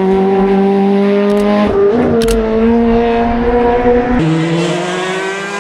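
Rally car engine running hard at steady high revs. Its pitch jumps about two seconds in, with a few sharp clicks, and drops abruptly about four seconds in.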